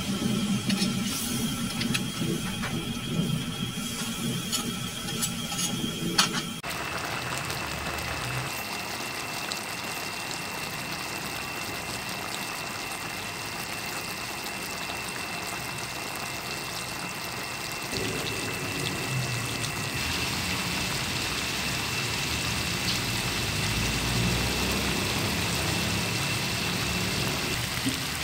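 Chicken and potatoes simmering in coconut-milk sauce in an aluminium pan: a steady hiss of bubbling liquid, whose sound changes abruptly about six seconds in.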